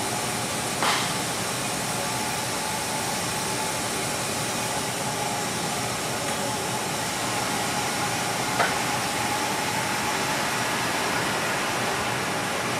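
Vacuum blower of a Schmalz Jumbo vacuum tube lifter running with a steady rushing hiss and a faint hum. Two brief sharp knocks break it, about a second in and again about two-thirds through.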